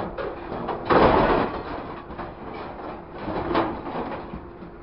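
Scrap metal crashing and clattering into a steel truck bed as a grapple drops its load, loudest about a second in with a second crash a little after halfway, over the steady hum of the truck.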